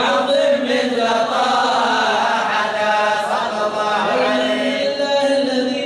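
Men's voices chanting a mawlid, a devotional song in praise of the Prophet, in a slow, continuous melodic line that rises and falls.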